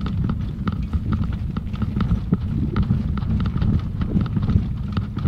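Wind rumbling on a camera mounted on a hang glider, with rapid, uneven clicking and knocking as the glider is walked over rough ground.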